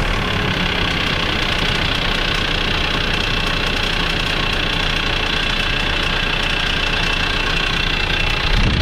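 Kia Sorento's D4CB 2.5-litre four-cylinder diesel idling steadily with a rapid knocking tick, which the mechanic reckons sounds like hydraulic lifter knock.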